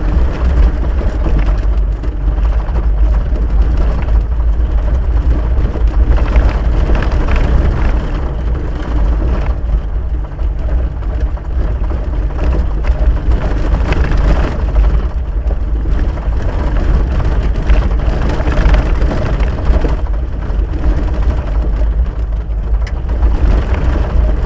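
Vehicle driving on a dirt and gravel road, picked up from inside the cab by a dash cam: a steady, loud low rumble of engine and tyres over the rough surface.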